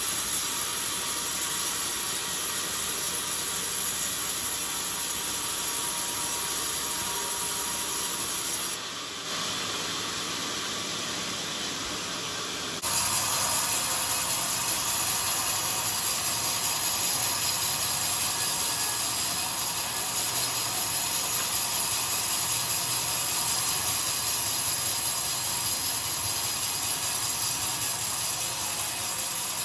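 Sawmill band saw running and cutting lengthwise through a hard, old coconut-wood beam: a steady, high-pitched noise of the blade in the timber. It dips slightly about nine seconds in and comes back louder about four seconds later.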